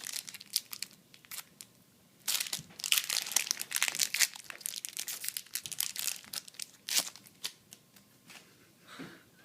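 Foil Yu-Gi-Oh booster pack wrappers crinkling and crackling as they are handled and torn open, in uneven bursts that are loudest a couple of seconds in and again near the seven-second mark.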